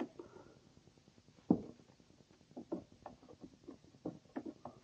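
Light clicks and taps of plastic pedal parts being handled and fitted onto the pedal's mounting pin, with one sharper knock about a second and a half in, then a string of small clicks.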